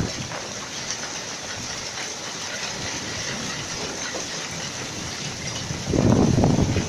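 Hail and rain falling steadily: a dense hiss with many small ticks of hailstones striking. A louder low rumble comes in about six seconds in.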